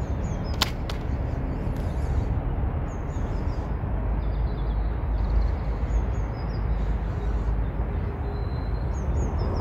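Steady low outdoor rumble by the river, with faint small bird chirps now and then and one sharp click about half a second in.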